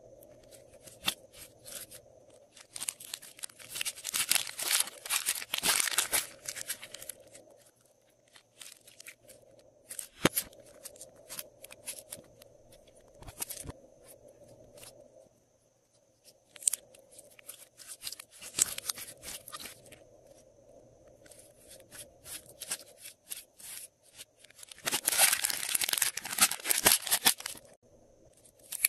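Plastic piping bags of glossy slime being handled and squeezed: crackling, clicky plastic-and-slime sounds in several bursts, the loudest near the end.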